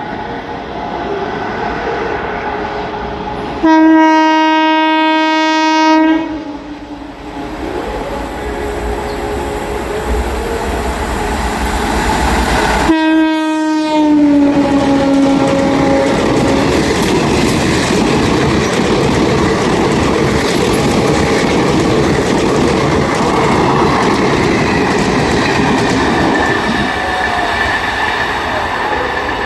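WAP-4 electric locomotive horn: one loud blast about four seconds in lasting around two seconds, and a second blast about thirteen seconds in that falls in pitch. Underneath and after, the train rumbles and clatters steadily over the rails.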